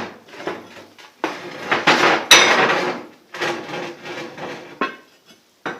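Heavy steel vise parts clanking and scraping against each other as the post vise is handled and assembled, with a sharp metallic knock a little over two seconds in and a couple of lighter knocks near the end.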